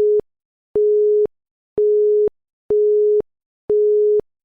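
Countdown timer beeps in a quiz: a single steady electronic tone, each beep about half a second long, repeating about once a second.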